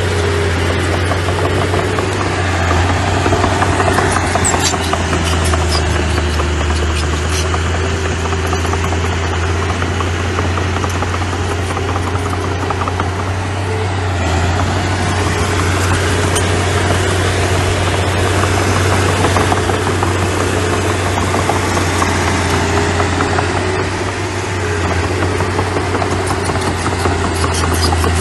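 Diesel engine of a small earthmoving machine running steadily, with a few sharp clicks.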